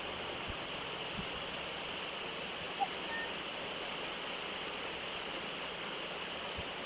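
Steady outdoor hiss picked up by a live-cam microphone, with one short faint blip a little before the middle.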